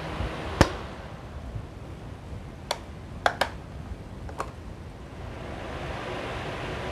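Electric stand fan, freshly fitted with a rewound stator coil, running on test while its plastic controls give five sharp clicks, two of them close together. Near the end the rush of its airflow grows louder.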